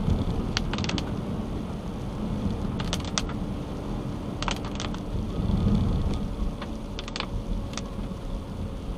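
Steady low road noise from a car driving on a wet road in rain, heard from inside. Short clusters of sharp clicks come about every two seconds.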